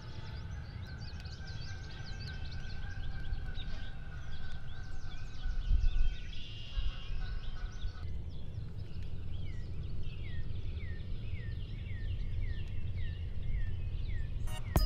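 Songbirds singing at dawn in woodland, many chirps overlapping, with a steady low rumble of wind on the microphone. In the second half one bird repeats a short falling whistle over and over, about two a second.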